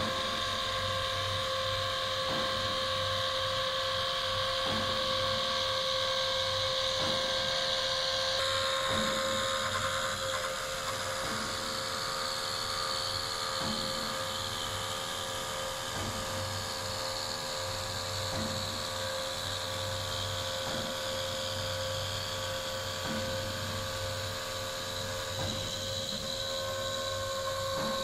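Five-axis CNC machine's high-speed spindle whining steadily as it mills a contoured block, with the cutting noise shifting about eight seconds in and a faint tick repeating about every two seconds.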